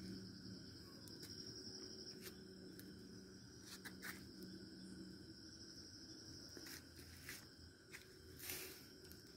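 Faint night insects trilling in one steady high-pitched tone, with a few brief clicks scattered through it; the loudest click comes near the end.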